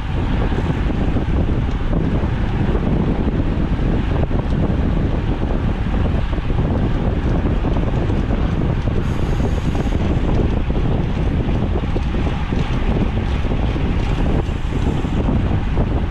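Wind rushing over a bike-mounted action camera's microphone while riding in a fast road-bike group at about 26 to 28 mph, a steady, loud, rumbling rush.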